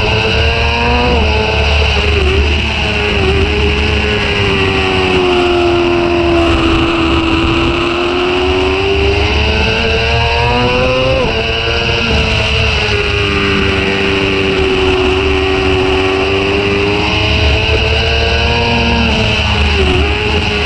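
Sport motorcycle engine at high revs on track, its note climbing and falling with the throttle and gear changes, with a sharp drop in pitch about halfway through as it shifts. Wind rushes over the bike-mounted microphone.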